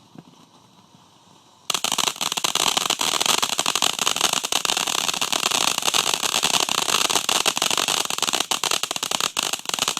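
A consumer firework going off with a dense, continuous crackle of rapid pops that starts suddenly about two seconds in and keeps going.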